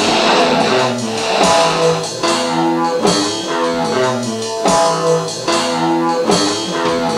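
Rock music: strummed electric guitar chords over a drum kit, the chords changing in a repeating pattern.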